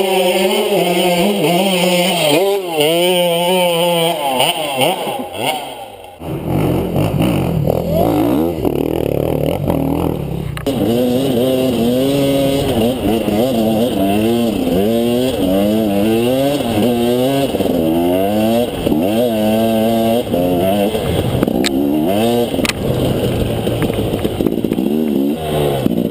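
Enduro dirt bike engine heard from on the bike, its revs rising and falling over and over as the throttle is worked riding a forest trail, with a short drop in level about six seconds in.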